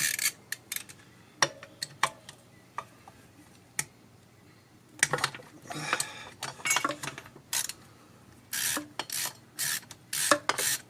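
Hand tools and metal engine parts clicking, scraping and clinking during an engine teardown, with short rasping bursts like a ratchet working on bolts.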